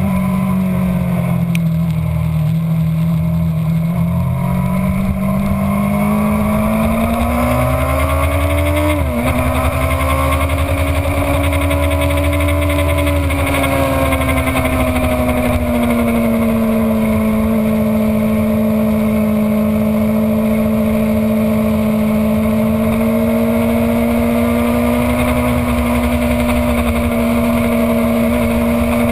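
Sport motorcycle engine heard from a camera mounted on the bike's fairing, under way on a race track with steady wind rush. The engine note sags, climbs and breaks off sharply about nine seconds in, then holds a fairly even pitch through a long sweep.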